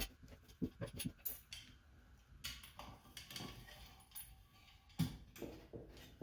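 Scattered light clicks and knocks of hand work notching the wall for cord-grip clearance, with a louder knock about five seconds in.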